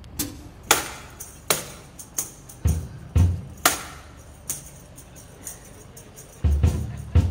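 Music: an instrumental passage with tambourine strikes and low drum hits in a steady beat.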